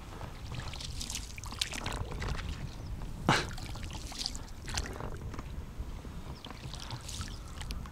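A small boat being rowed: oar strokes dipping and splashing in the water at an irregular pace, with one sharper, louder splash about three seconds in.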